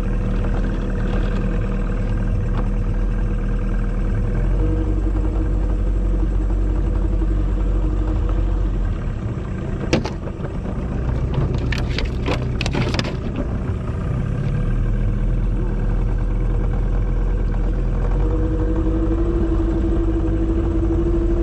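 Boat outboard motor running steadily under way, with a few sharp knocks about halfway through.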